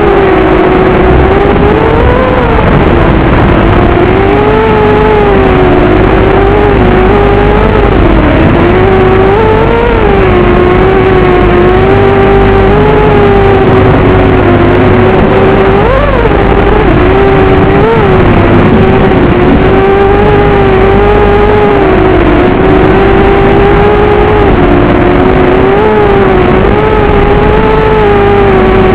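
Electric motors and propellers of an FPV racing quadcopter whining loudly in flight. The pitch holds mostly level with frequent small rises and dips, and there is one sharp brief rise about sixteen seconds in.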